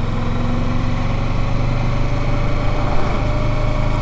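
Motorcycle engine running steadily as the bike rides along, with road and wind noise; the engine note rises slightly over the few seconds.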